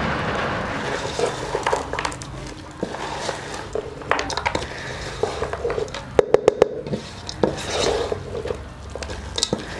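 Wooden spoon stirring a wet puffed-rice chatpate mix in a metal pot: irregular scraping and clacks of the spoon against the pot, with a quick run of about five sharp knocks about two-thirds of the way through.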